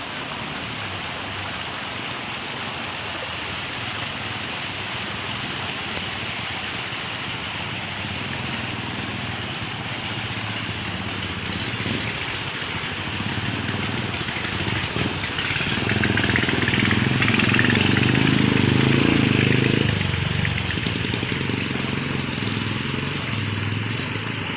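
Muddy floodwater rushing down an overflowing small ditch after heavy rain, a steady rush of water. It swells louder for about five seconds, starting some fifteen seconds in.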